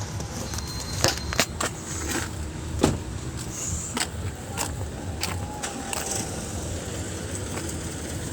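Steady low rumble of a vehicle engine running, with a scattering of sharp knocks and clacks over the first few seconds.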